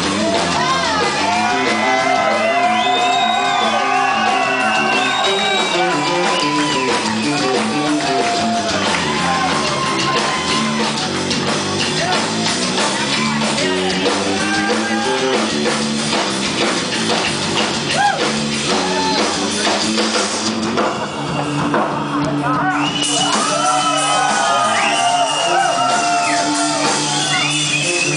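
Live rock band playing loudly, an electric guitar leading with notes that bend and slide, with shouts heard over the band.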